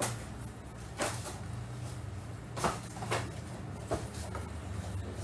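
Steady low room hum with several soft, irregular knocks and clicks, like objects being handled or set down.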